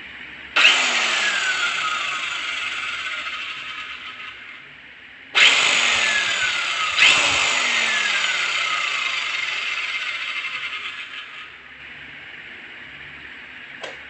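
Makita 1050-watt circular saw with a 6-inch blade run free with no load: three trigger pulls, each spinning the motor up at once and letting it coast down with a falling whine. The third pull comes while the blade is still winding down, and there is a small click near the end.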